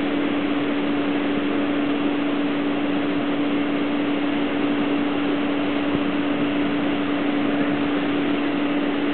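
A steady machine drone: a constant hum over an even hiss.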